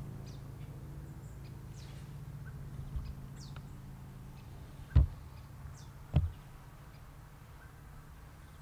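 Outdoor garden ambience: scattered faint bird chirps over a low steady hum that slowly fades. Two short dull thumps, about five and six seconds in, are the loudest sounds.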